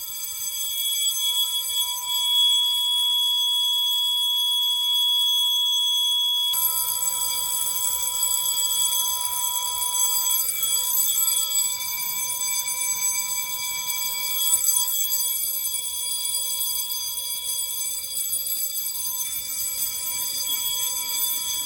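Fire alarm supervisory bell ringing continuously, a dense cluster of steady metallic tones, signalling a duct smoke detector in supervisory. About six and a half seconds in the sound becomes fuller and noisier as a second alarm signal joins in.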